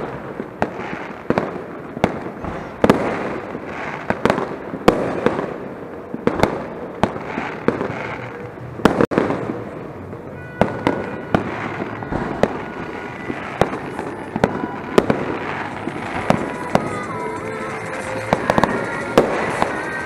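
New Year's Eve fireworks and firecrackers going off all around: an irregular string of sharp bangs and crackles, several a second, with background music coming in about halfway.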